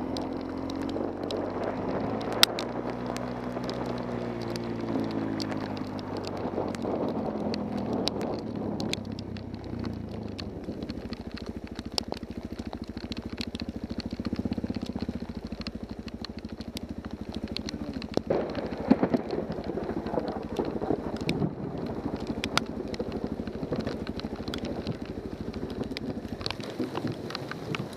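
Suzuki DR-Z400 single-cylinder motorcycle engine running at idle, its pitch wavering in the first few seconds, with rain pattering and scattered sharp ticks of drops.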